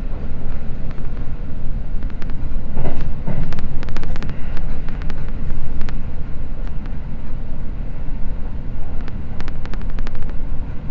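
Seibu Red Arrow limited express train running at speed, heard from inside the car: a steady low rumble with clusters of sharp clicks as the wheels pass over rail joints and points.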